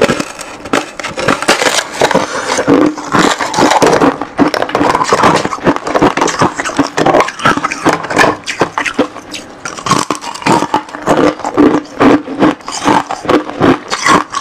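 Freezer frost ice bitten and chewed close to a lapel microphone: dense, rapid crunching and crackling that goes on without a break.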